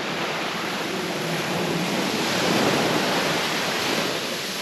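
Ocean surf washing onto a beach: a steady rush that swells a little midway and then eases.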